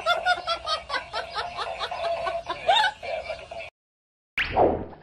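Quick giggling laughter, a string of short high ha-ha pulses, that cuts off abruptly about three and a half seconds in. After a moment of silence a rising swoosh-like sound effect starts near the end.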